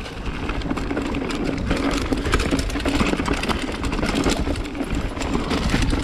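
Mountain bike rolling over a rough dirt trail: tyres crunching on dirt and roots while the bike rattles, a dense, irregular clatter of small knocks over a steady rumble.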